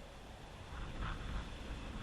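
Wind buffeting the microphone: a low, uneven rumble that grows louder about half a second in.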